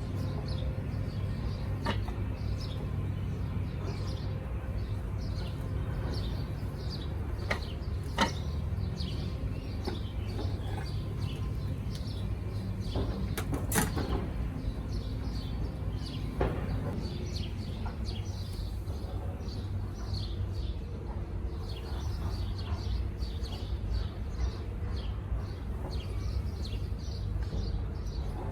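Small birds chirping steadily over a constant low hum, with a few sharp knocks, the loudest about 14 seconds in.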